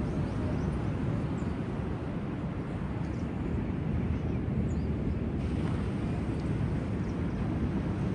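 Steady low rumble of sea waves at the shore, with a few faint, short high chirps scattered through it.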